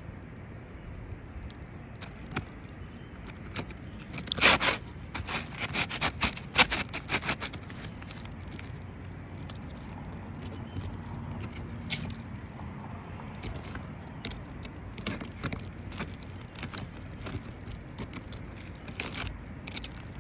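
Scraping and sharp clicks of hand work on roof shingles, with a busy run of loud clicks and scrapes about four to seven seconds in and scattered ones after.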